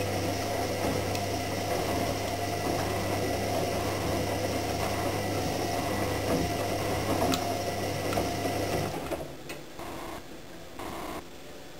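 AEG Lavamat 76730 front-loading washing machine turning its drum during an energy-saving wash. The motor hums steadily, with the wet laundry swishing in the drum, and then stops about nine seconds in.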